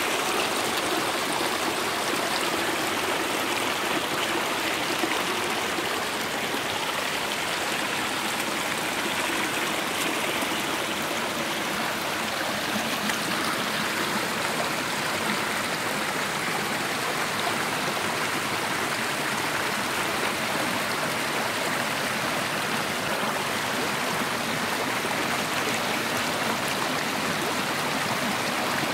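Small mountain brook rushing over rocks and splashing down in little cascades, a steady rush of water.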